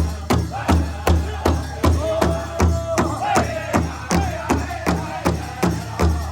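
Music with a steady, fast drum beat of about two and a half hits a second, with a held melodic line partway through.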